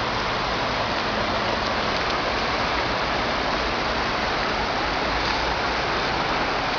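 Steady, even rush of floodwater pouring through a drainage ditch swollen by a flash flood.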